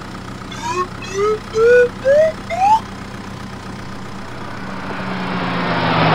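Steady low engine-idle hum with five short rising whistle-like tones in the first three seconds, each pitched higher than the last. Then a rising whoosh builds to its loudest near the end.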